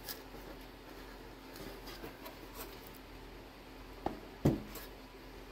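Faint small clicks and rubbing of hands working pull-pull cable hardware at a model-plane servo, with a sharp click about four seconds in and a brief louder sound just after.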